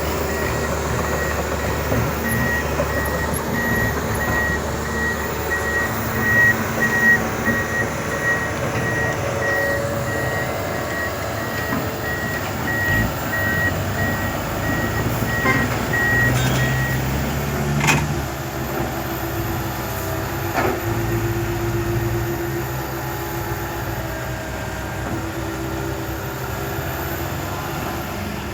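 Heavy diesel earthmoving machinery running, with a reversing alarm beeping in a steady, even rhythm that stops about two-thirds of the way through.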